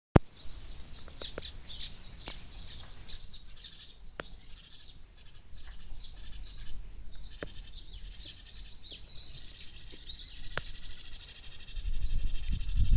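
Small songbirds chirping and twittering, with a fast, even trill building in the last few seconds. A low rumble rises near the end.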